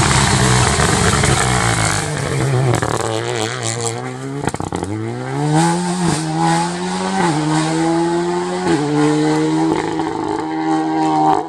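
Rally car engine at full throttle going past, its note falling away. Then a rally car accelerating hard, the engine note climbing and dropping back at three upshifts.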